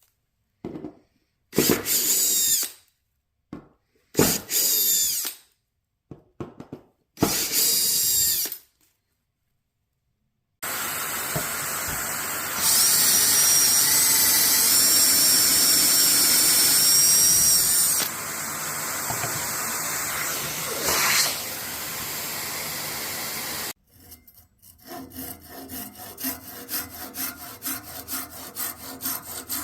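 Power drill working in wood. It runs in three short bursts, then drills continuously for about thirteen seconds, louder and higher for a stretch in the middle. Near the end come rapid rhythmic scraping strokes on wood.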